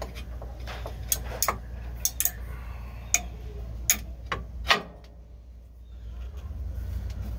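Hand ratchet wrench clicking as a bolt is turned: a slow, irregular series of sharp ticks, fewer and fainter after about five seconds, over a low steady rumble.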